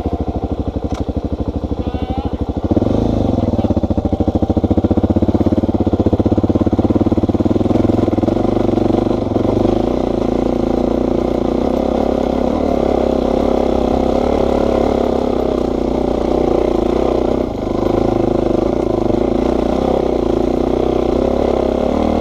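A Suzuki DR-Z400's single-cylinder four-stroke engine chugs at low revs, then opens up a few seconds in and pulls steadily under load up a steep dirt hill climb. The throttle eases off briefly near the end.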